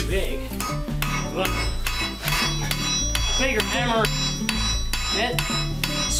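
Hand hammer striking a red-hot steel knife blade on an anvil in a steady run of blows, roughly three to four a second, with the anvil ringing. Background music plays under the hammering.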